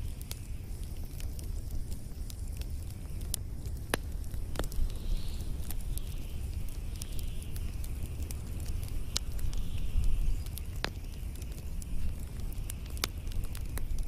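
Wood and pine-cone fire burning: irregular sharp crackles and pops over a steady low rumble and a soft hiss.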